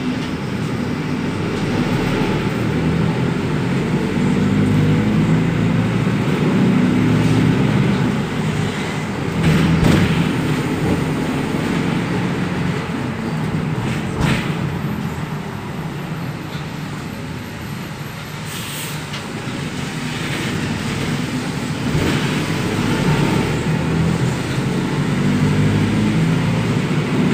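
Mercedes-Benz LO 916 BlueTec 5 minibus's four-cylinder diesel engine running under way, its pitch climbing as it pulls and dropping as it eases off, twice over. A few sharp knocks and rattles from the bus body come through, the clearest about fourteen seconds in.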